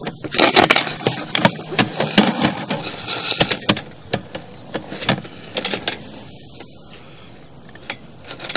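Irregular clicks, knocks and scraping of a sewer inspection camera head and its push cable being handled and fed into the cleanout pipe, dying down for a couple of seconds before a few more clicks near the end.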